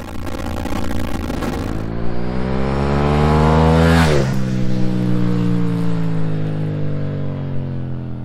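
Husqvarna 901 Norden's 889cc parallel-twin engine accelerating, its pitch climbing for a few seconds, then dropping sharply about four seconds in as the bike goes past, and slowly falling away as it rides off.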